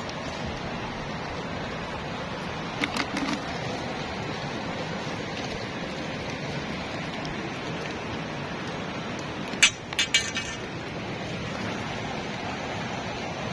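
Steady watery hiss, with a few short clicks and knocks about three seconds in and a louder clatter around ten seconds, as the catch is shaken out of a cast net into a plastic bucket and the bucket is handled.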